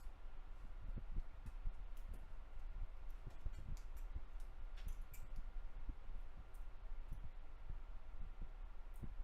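Scattered small clicks and taps of smartphone parts and small tools being handled during a repair, over a steady low hum.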